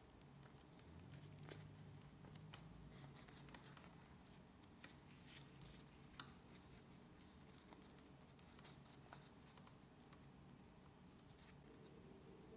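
Faint close-up handling of a phone screen protector's paper and plastic film: soft rustling and crinkling with scattered small ticks, then a wipe rubbing over the phone's glass screen near the end, over a faint low hum.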